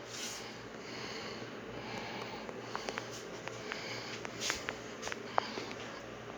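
Quiet room tone with a steady low hum, soft breathing or sniffing about once a second, and a handful of small sharp clicks in the middle.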